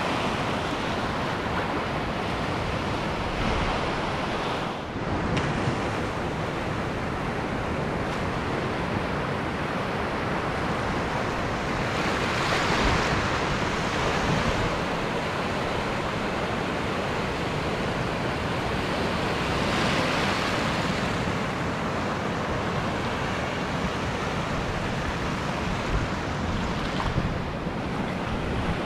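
Ocean surf washing up a sandy beach: a steady rush of breaking waves and foam, with louder swells about twelve and twenty seconds in.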